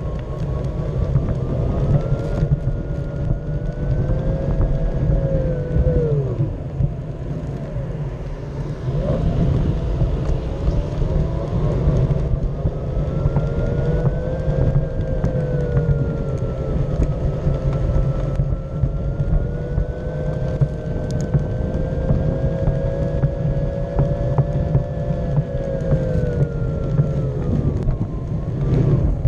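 Motor whine of a small ground-level vehicle carrying the camera, its pitch rising and falling with speed over a steady low rumble of wheels rolling on concrete; the whine drops off as it slows about six seconds in and again near the end.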